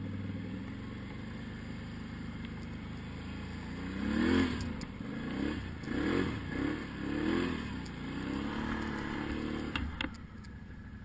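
Quad (ATV) engine running, revved up in about four short rising bursts, then easing off after a couple of sharp clicks near the end.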